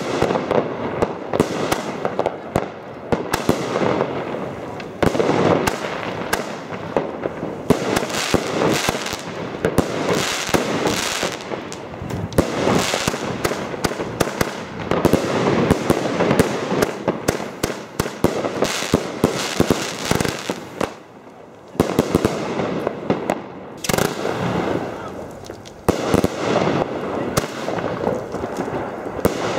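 Original Fireworks Zena Event 3 firework cake firing a rapid, continuous series of shots as its tubes launch comets that burst overhead, with a brief lull about two-thirds of the way through.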